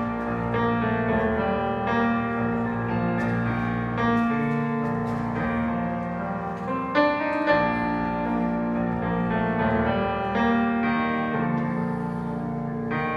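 Grand piano played solo, an instrumental passage of struck chords and melody notes with no voice.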